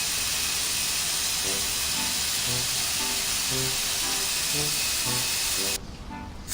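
Garden hose spraying water with a steady hiss that cuts off abruptly near the end, with a simple melody playing underneath.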